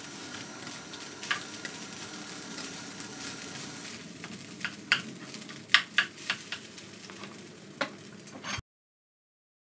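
Rice frying in a pan with a steady sizzle, a spatula knocking and scraping against the pan in a scatter of sharp clicks. The sound cuts off abruptly near the end.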